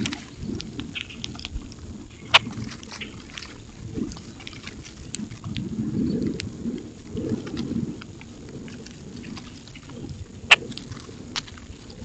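A flock of common grackles feeding at a ground feeder: a few sharp, short clicks, the loudest about two seconds in and near the end, over a low rumble that swells around the middle.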